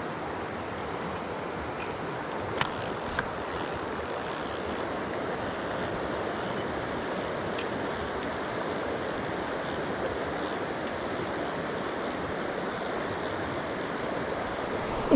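A mountain stream rushing steadily over rocks, with a couple of brief sharp clicks about two and a half seconds in.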